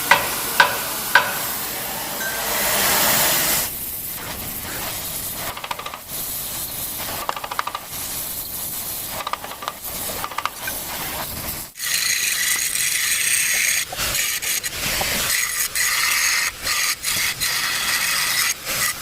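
Metal repair on a steel differential housing: a few sharp hammer taps, then the steady crackling hiss of arc welding. About twelve seconds in the sound cuts to a brighter, steady hiss of an angle grinder smoothing the weld.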